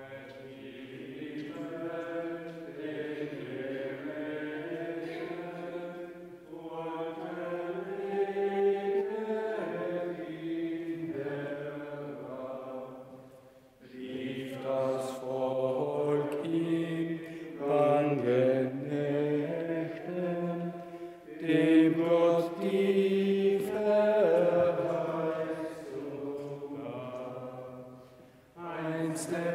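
Voices singing a hymn together, in phrases a few seconds long with short pauses between: the entrance hymn at the start of Mass.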